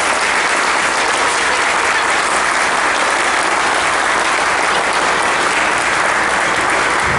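Audience applauding: dense, steady clapping from many hands.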